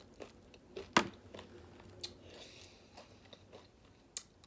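A person chewing tortilla chips with spinach artichoke dip: a few sharp crunches and mouth clicks, spaced about a second apart, the loudest about a second in.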